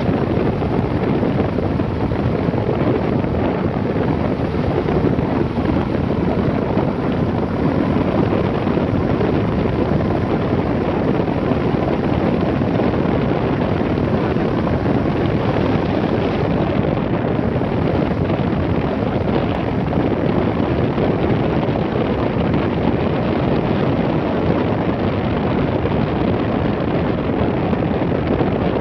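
Steady wind rush over the microphone of a camera on a moving vehicle, with the vehicle's engine and tyres running underneath at an even pace.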